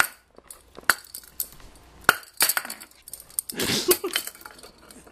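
A glass shot glass hanging on a string of plastic Mardi Gras beads clinks and knocks several times at uneven intervals, with the beads rattling as it is batted about.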